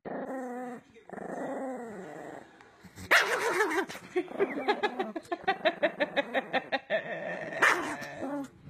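Small Chihuahua growling and yapping: a wavering whiny growl at first, then a rapid run of short yaps, about five a second.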